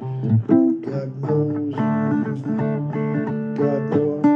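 Instrumental guitar break in a blues song: a run of picked single notes and short chords, with no voice.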